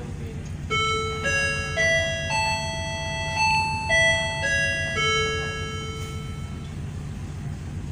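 An electronic chime melody of about eight notes, climbing in pitch and then falling back, ending on a long held note. Under it runs the steady low hum of the ferry's engines.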